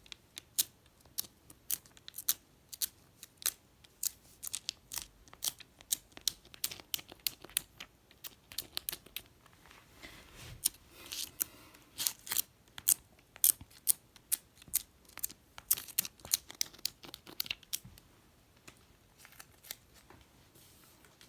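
A long run of light, sharp clicks and taps, irregular at a few a second, with a brief rustle about halfway through.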